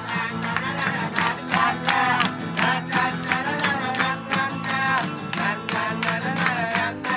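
A song sung over music, with a group clapping along in a steady rhythm.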